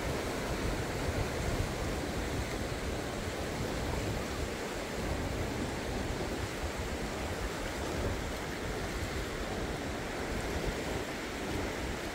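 Fast-flowing river water rushing steadily, a constant wash of noise, with wind fluttering on the microphone.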